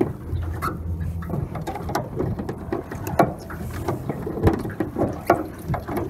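Handling noise from a camera jostled against clothing and a life jacket: irregular knocks and fabric rubbing, with a low hum in the first second or so.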